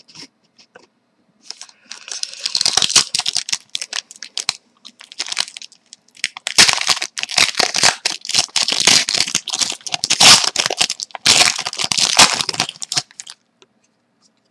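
Foil wrapper of a Panini Prizm hockey card pack being torn open and crinkled. The crinkling comes in two stretches, the second longer.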